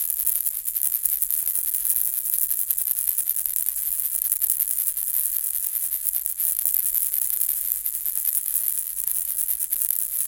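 Baby rattle ball shaken without pause: a dense, steady, high-pitched rattle of the small balls inside it.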